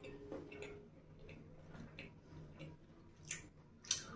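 Close-up mouth sounds of a person chewing fried chicken lollipops: a run of short, wet clicks and smacks, with two sharper, louder clicks about three and four seconds in.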